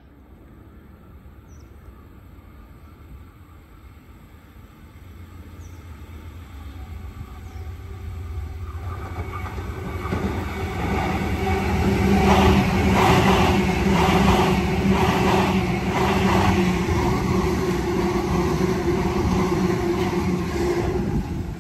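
A Sydney Trains double-deck electric train approaching and running along the platform: a rumble that grows steadily louder, then a regular clacking of wheels over rail joints, about one and a half clacks a second, over a steady electric motor hum.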